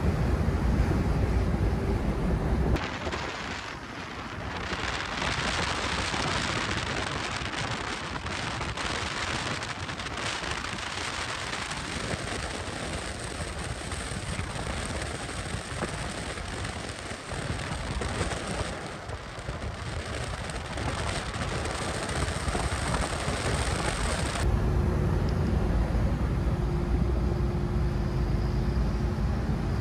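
1969 Oldsmobile 442 convertible driving along a road. Its V8 drones steadily as heard from the cabin; about three seconds in the sound switches to a loud rush of wind and tyres from outside alongside the car, with the engine pushed into the background, and near the end it returns to the cabin engine drone.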